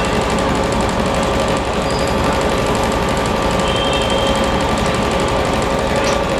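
Steady hum of a standing WAP7 electric locomotive's auxiliary machinery running, with a constant tone over a dense mechanical noise and no knocks.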